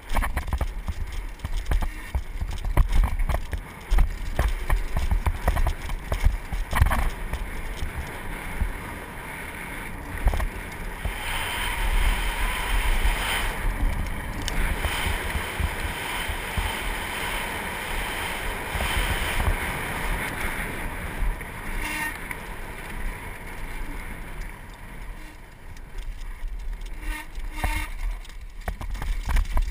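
Mountain bike riding down a dirt trail: wind buffeting the camera microphone, knobby tyres rolling over dirt, and the bike rattling and knocking over bumps. In the middle stretch the tyres give a steadier hiss on a gravelly track.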